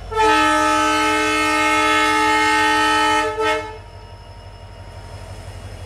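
Diesel locomotive horn of a WDP-4 sounding one long blast of about three seconds, then a short toot: the driver's signal that the train is about to start.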